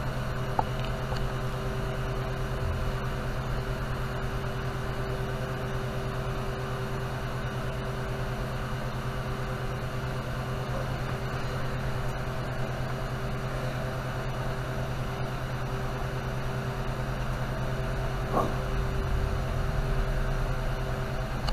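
Steady electric hum with a fan-like whir and a constant low drone from a running workshop machine, with a small click about half a second in and a light knock near the end.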